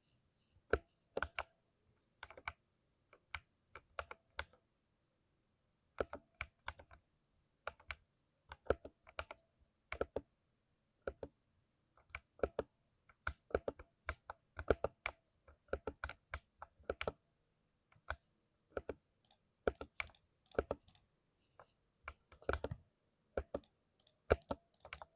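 Typing on a lubed 60% mechanical keyboard: irregular runs of individual key presses, with short pauses between bursts.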